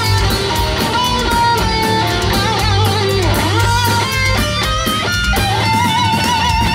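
Heavy metal band playing live: a lead electric guitar line with wide vibrato and bends over rhythm guitar, bass and drums. A bend dips down and comes back a little past three seconds in, and a long vibrato note is held through the last second or so.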